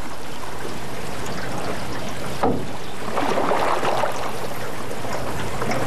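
River water ambience: a steady rushing hiss of flowing water, with a splash about two and a half seconds in and a busier stretch of splashing just after it.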